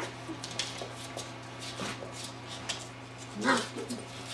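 A golden retriever and a beagle puppy playing, with claws clicking and scrabbling on a hardwood floor, and one of the dogs gives a short yelp about three and a half seconds in.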